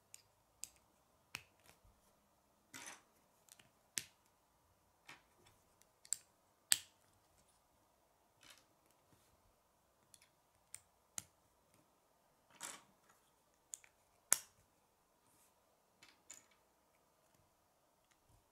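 Plastic K'nex rods and connectors clicking and snapping as they are pushed together by hand: irregular sharp clicks, roughly one a second, with a couple of short rustles of pieces being handled.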